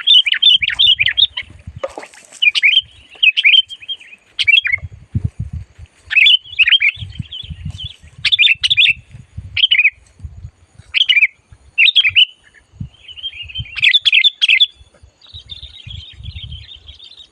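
Sooty-headed bulbul (kutilang) calling loud and fast: bursts of sharp chirping phrases with short pauses between them, ending in a steady buzzy chatter.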